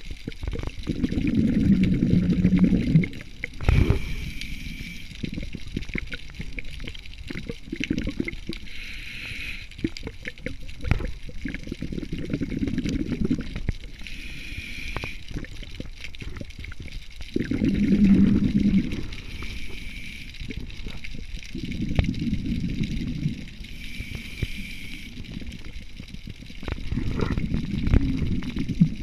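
A scuba diver breathing through a regulator underwater, in a steady cycle about every five seconds: a short hiss on each inhale, then a louder rush of exhaled bubbles. Scattered small clicks fall between breaths.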